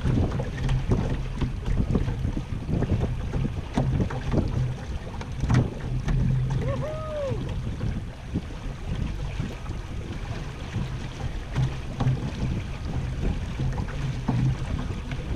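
Wind buffeting the microphone of a camera on a small sailing trimaran, over water rushing and slapping along the hull, in an uneven low rumble with gusty thumps. About seven seconds in, a brief squeak rises and falls in pitch.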